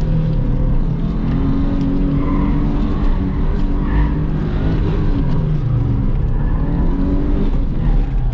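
Subaru Impreza GT's turbocharged flat-four engine, heard from inside the cabin, revving up and down in low gears through tight slalom turns, with short tyre squeals about two and four seconds in.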